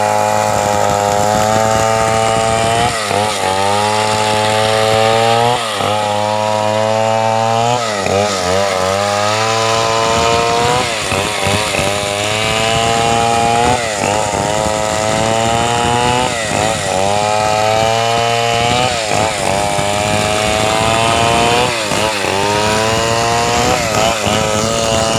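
Chainsaw running at high revs, cutting wood. Its pitch dips and recovers about every two seconds as the engine loads and frees up.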